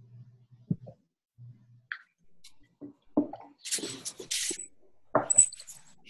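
Intermittent rustling and soft knocks from someone handling things near a computer microphone, with a cluster of short rustles from about three seconds in.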